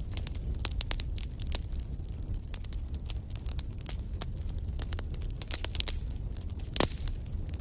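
Wood fire crackling in a fireplace: a steady low rumble with frequent sharp pops and snaps, and one louder pop near the end.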